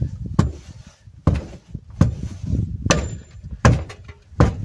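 Hammer blows on the steel rim and tyre bead of a T-40 tractor's rear wheel, about six sharp strikes less than a second apart, knocking the tyre into place on the rim.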